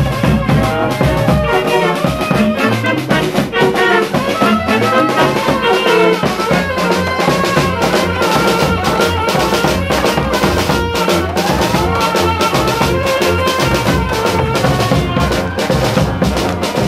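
Balkan brass band playing live: trumpets carry the melody, with some sliding notes, over a sousaphone bass line, while snare drum and cymbal keep a steady beat.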